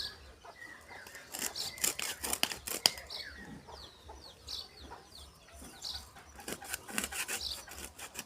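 A large live snakehead fish being cut and scraped with a blade: sharp clicking and scraping strokes in two bursts, about a second in and again near the end. Chickens cluck in the background.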